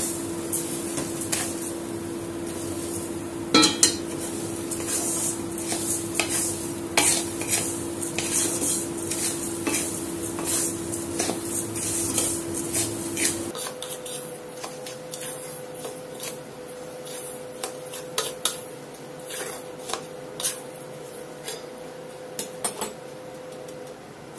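Wooden spatula stirring and scraping grated coconut and sugar around an aluminium kadai on a low flame, with frequent light knocks of the spatula against the pan.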